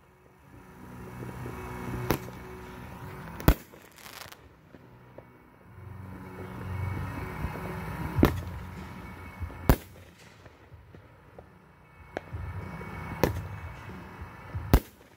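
Aerial fireworks shells bursting overhead: six sharp bangs in three pairs, each pair about a second and a half apart, over a swelling and fading wash of sound between them.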